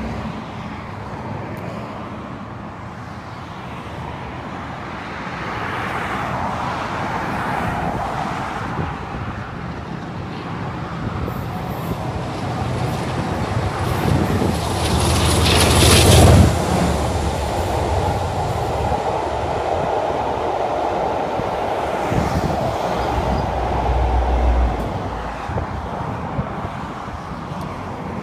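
Diesel-hauled train approaching and passing beneath: the leading mainline diesel locomotive grows steadily louder and peaks sharply as it passes underneath about halfway through. The steady rush of the coaches follows, with a second low rumble swelling about three-quarters of the way through before the sound falls away.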